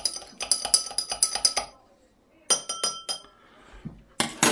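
Metal teaspoon clinking rapidly against the inside of a drinking glass while stirring hot whiskey with sugar and cloves, about five ringing clinks a second. The stirring stops a little under two seconds in, resumes briefly, and a louder knock comes near the end.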